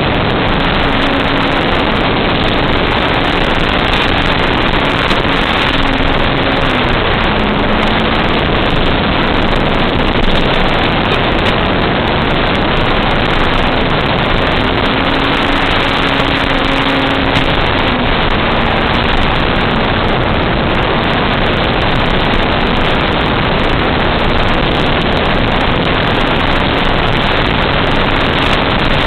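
RC airplane's propeller and airflow heard from the onboard camera: a loud, steady rushing noise with a faint tone that drops and rises in pitch a few times.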